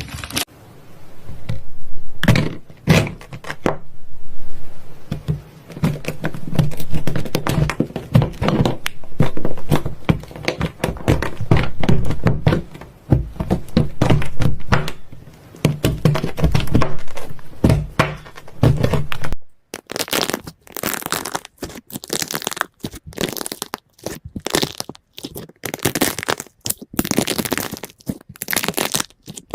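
Slime being worked in the hands, giving dense runs of crackling, popping clicks in slow swells. About two-thirds of the way through it changes to a crisper, sharper crackle in short bursts with gaps between.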